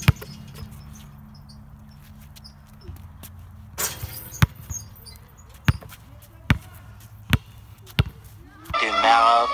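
A basketball bounces on the ground, a series of single sharp knocks about a second apart, with a longer clatter around four seconds in as the shot hits the hoop. A hip hop song starts near the end.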